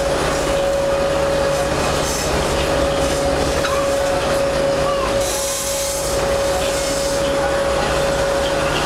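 Steady engine drone of a glass-roofed river tour boat heard from inside the passenger cabin, with a constant whine running through it and a brief hiss about five seconds in.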